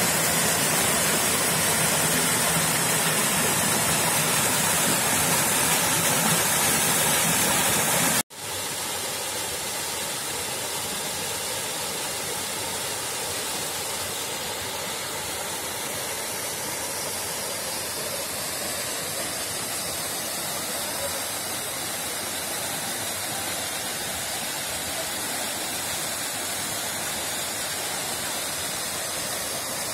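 Steady rush of a mountain waterfall cascading down rock tiers. About 8 seconds in it cuts out for an instant and comes back a little quieter and less hissy.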